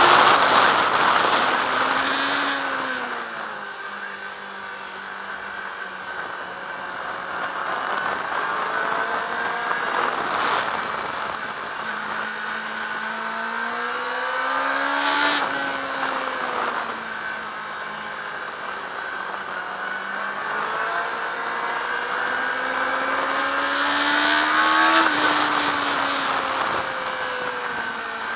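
Yamaha R6 inline-four sport bike engine heard from on board at track speed, with wind rushing over the microphone. The engine note falls away near the start as the bike slows, then climbs in long pulls that drop sharply at each upshift, about a third of the way in, halfway through, and again near the end.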